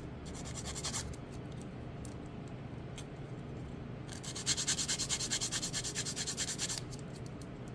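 A 180-grit hand nail file rubbed quickly back and forth over an acrylic-covered embossed nail tip, making a scratchy rasp. There is one spell of filing that ends about a second in, a few light clicks, then a louder spell of strokes from about four and a half to seven seconds in.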